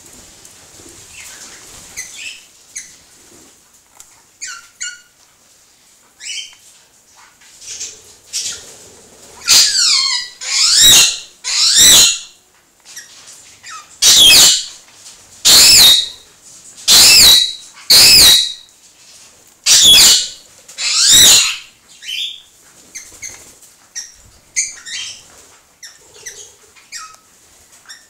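Australian king parrots calling: a run of about ten loud, high-pitched calls through the middle, some falling in pitch, with softer chirps before and after.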